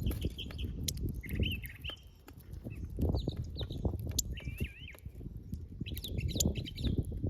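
Small birds chirping and twittering in short warbled phrases, over repeated low knocks and rustling.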